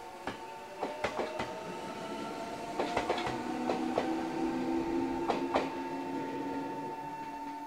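Meitetsu 6800 series electric train accelerating away from the station: its motors whine, rising slowly in pitch. The wheels clack in quick clusters over rail joints and points, and a steady high tone sounds throughout.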